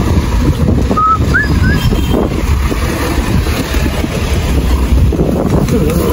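Wind buffeting the handheld camera's microphone: a loud, steady low rumble. A few short rising chirps sound about a second in.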